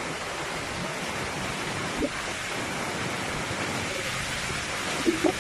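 Typhoon wind and heavy rain: a steady rushing noise that does not let up, with a brief thump about two seconds in.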